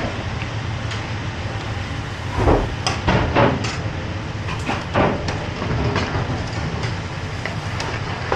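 Steady low rumble of a commercial kitchen's gas range and extraction, with a metal ladle and spoon knocking and scraping in frying pans of curry sauce a few times, most around the middle.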